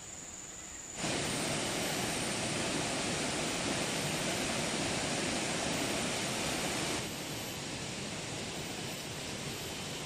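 Steady hiss of a pot of leafy greens in creamy gravy cooking on a stove. It starts abruptly about a second in and cuts off about seven seconds in, leaving a quieter outdoor background noise.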